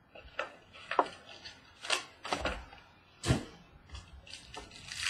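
Small cardboard Tier One baseball card box being handled and opened on a table: a string of short sharp taps, clicks and scrapes, the loudest about a second in and just past three seconds in.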